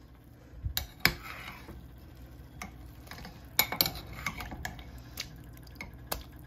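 Metal spoon clinking and knocking against the slow cooker's pot while stirring and lifting chicken pieces in broth: a scatter of light, irregular clinks.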